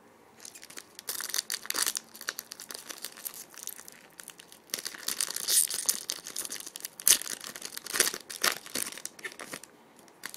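Plastic or foil trading-card pack wrapper being torn open and crinkled, an irregular crackling that starts about half a second in and stops shortly before the end.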